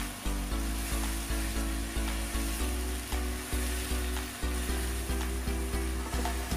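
Background music with a steady beat and a deep bass line over the sizzle of sliced bottle gourd and pork being stir-fried with tongs in a wok.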